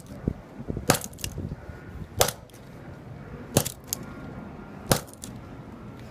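Sledgehammer striking a flip phone four times at an even pace, each blow a sharp crack with a small rattle of plastic pieces just after.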